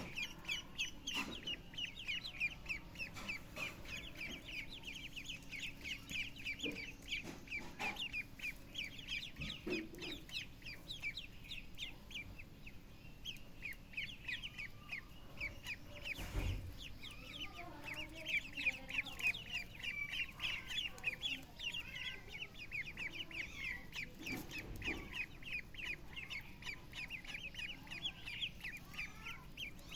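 Poultry calling continuously, a dense stream of short, high chirps and clucks, with a single thump about halfway through.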